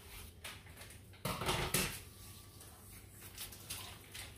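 Kitchen handling noise: a few faint clicks and knocks, with one short, louder rustling scrape about a second and a half in.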